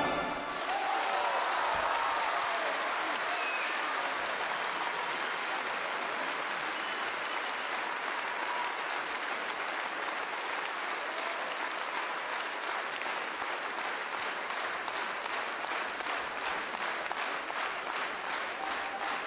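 A large theatre audience applauding, with a few cheering voices in the first few seconds. About two-thirds of the way in, the clapping settles into a steady rhythmic clap in unison.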